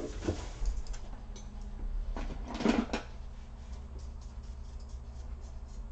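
A small brush scrubbing dust out of an Acer Nitro AN515-54 laptop's cooling fans: light, irregular scratching and ticking, with a louder stretch of brushing about two seconds in, over a steady low hum.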